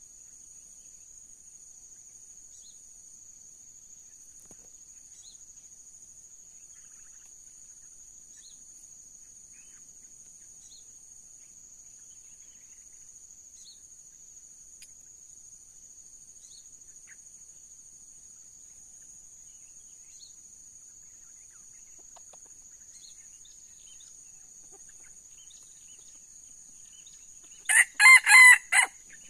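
A red junglefowl rooster crows once near the end: a short, clipped crow broken into a few parts. Beneath it runs a steady, faint, high insect drone.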